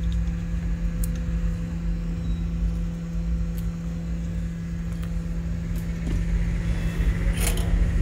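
A circuit board being unclamped from a metal PCB holder and lifted out: a few light clicks, then a short rattle near the end. All of it sits over a steady low electrical hum from the workbench.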